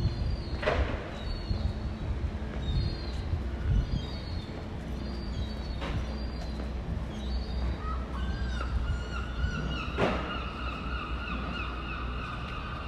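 Quiet town-street ambience: a low steady rumble under short bird chirps, with three sharp knocks spread a few seconds apart. From about two-thirds in, a steady two-toned mechanical whine joins.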